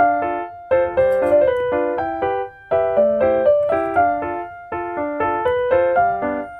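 Background music: a light piano or electric-piano tune played in short, bouncy phrases.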